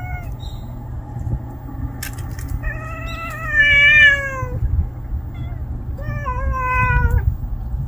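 A cat giving two long, wavering warning yowls, the first about three seconds in and lasting about two seconds, the second shorter near the end; each sags in pitch toward its close. It is a threat to another cat not to follow.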